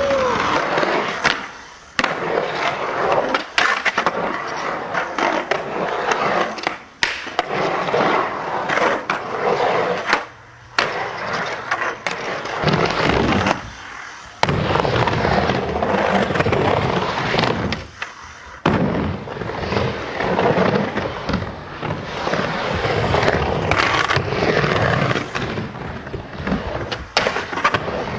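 Skateboard wheels rolling and grinding on concrete bowls and ramps, with sharp knocks as the board and trucks hit the surface. The rolling noise breaks off abruptly several times and starts again.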